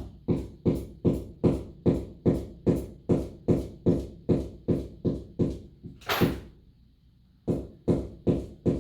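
Rapid, evenly spaced knocks, about two and a half a second, like hammer blows into a wall. About six seconds in there is a short harsh scraping noise, then a brief pause before the knocks resume.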